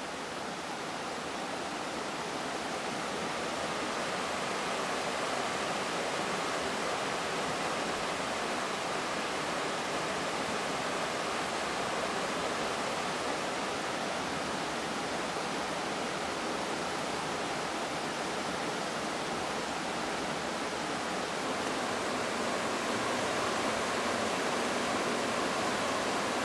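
Steady rush of a river running over stones and riffles.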